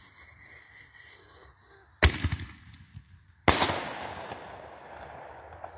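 Consumer firework going off on the ground: two sharp bangs about a second and a half apart, the second followed by a crackling hiss of falling sparks that slowly fades.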